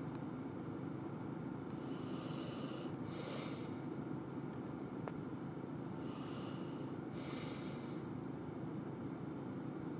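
A person breathing through the nose close to the microphone, a breath in and out about every four seconds, over a steady low hum.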